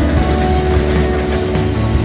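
Background music with held notes that change pitch, over a steady deep low end.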